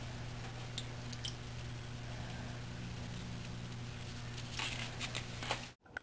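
Light handling noises, faint clicks and rustles of a small metal tool working a wooden top bar, over a steady low hum. A short cluster of louder clicks comes near the end, and then the sound cuts out abruptly.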